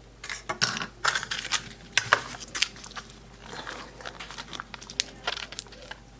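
Small plastic toy packaging being handled and worked open: irregular crinkling and sharp plastic clicks and snaps.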